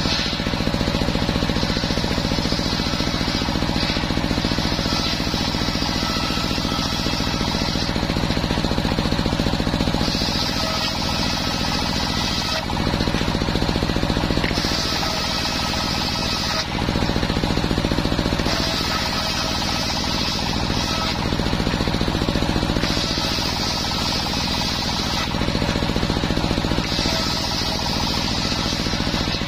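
Engine running steadily to drive a homemade circular sawmill blade, with the sharper sawing noise of the blade ripping waru wood planks coming and going in about six passes of a few seconds each.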